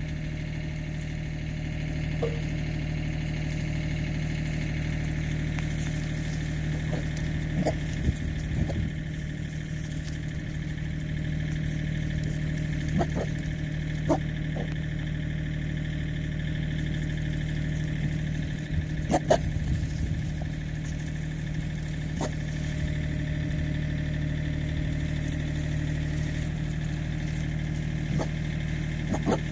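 An engine idling, a constant low hum that never changes, with a few brief sharp sounds over it, the loudest about two-thirds of the way through.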